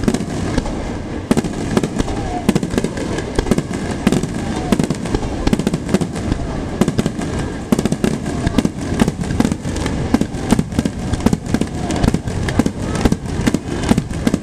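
Aerial firework shells bursting in rapid succession: a dense, continuous run of bangs with no break.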